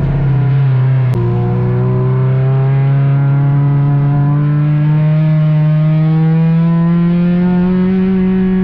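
Ford Courier race car's engine heard from inside the cabin, working hard under acceleration. It changes gear about a second in, then pulls steadily, its pitch slowly rising.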